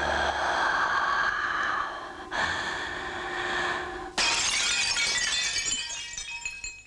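Sound-effect soundtrack for an animated apple breaking: a breathy, rushing hiss, cut off sharply about two seconds in, then about four seconds in a sudden loud glass-like shatter with tinkling fragments dying away.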